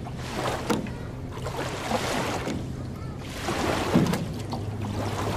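Small lake waves lapping on a sandy shore, washing in every second or so with a few sharp slaps of water, over a steady low hum.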